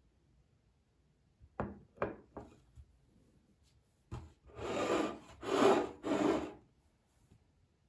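A ceramic plate knocking a few times against a hard table top, then scraping across it in three longer strokes.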